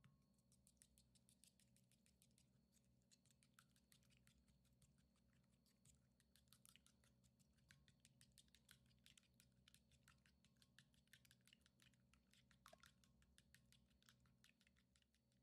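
Faint, rapid, irregular clicking and tapping, several small clicks a second, over a low steady hum.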